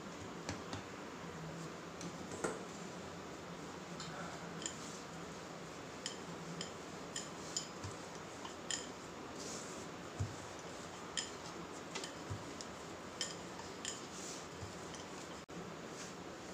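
Paratha dough being rolled out on a wooden board: irregular light knocks and clicks from the rolling pin working against the board, about one every second or less.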